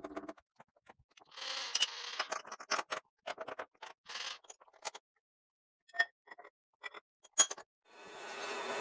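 Clanks, knocks and scraping of a steel workpiece and tools being handled at a Bridgeport milling machine's Kurt vise, with two sharp metal clinks that ring briefly about six and seven seconds in. A steady hiss rises near the end.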